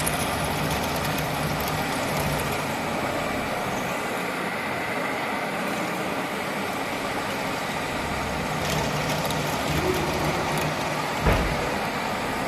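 Radial drilling machine running with a steady mechanical hum and a single sharp knock about eleven seconds in.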